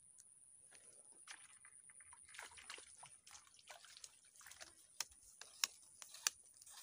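Light splashing and sloshing of water as a fish strikes at the baited hook at the surface, with a few sharp clicks in the last two seconds.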